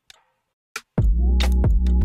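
Background electronic music with a deep bass line and a sharp beat, coming in about a second in after a near-silent gap.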